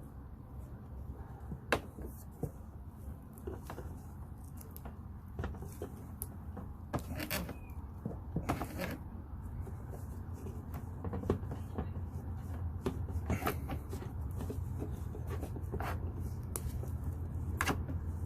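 Scattered clicks and knocks of a tight power steering hose being worked loose by hand in a BMW E46's engine bay, over a steady low hum.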